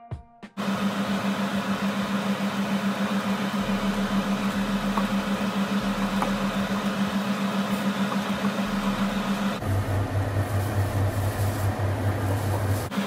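Steady machine hum: a low drone under an even hiss. The drone drops to a lower pitch about ten seconds in and jumps back up near the end.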